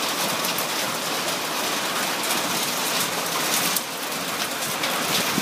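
Heavy rain falling steadily in a strong storm, a constant hiss with scattered sharper drop hits.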